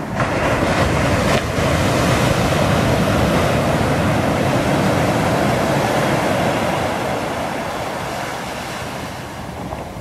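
Pacific Ocean wave breaking on a sandy beach right at the start, with a second surge a second later. Its whitewash rushes up the shore, then the sound slowly fades as the water runs out.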